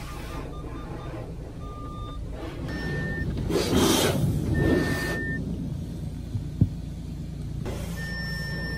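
Water spray from a hose hitting the car's glass and body, heard from inside the cabin, surging about three to five seconds in over a steady low rumble. A few short high beeps from the car's parking sensors sound as it is backed up, with a sharp click near the end.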